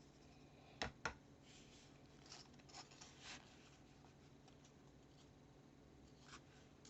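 Faint crunching of microwave-baked Argo cornstarch being bitten and chewed: two sharp crunches about a second in, then a few softer crackles, and one more near the end.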